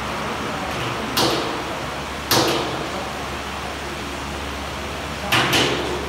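Sharp knocks with a short ringing tail: one about a second in, one about two seconds in, and a quick double near the end, over a steady hiss and low hum.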